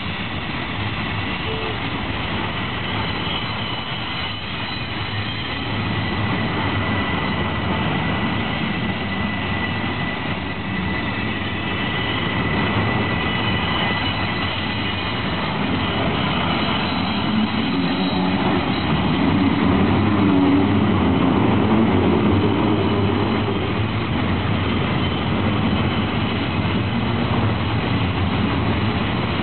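Freight train of autorack cars rolling past close by: a steady rumble and rattle of wheels on rails, with a thin high whine over it. It grows a little louder and heavier about halfway through.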